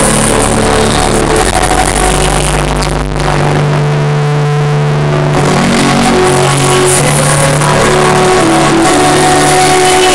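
Loud electronic dance music played live over an arena sound system: held synth chords over a deep bass line. The lowest bass drops out for about two seconds near the middle, then returns.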